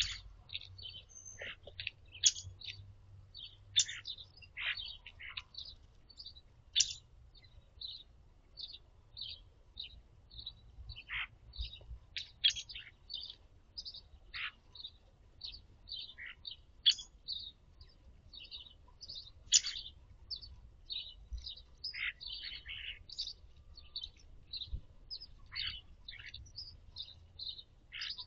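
Backyard birds chirping and chipping: a steady run of short, high notes, about two a second, some louder and sharper than others.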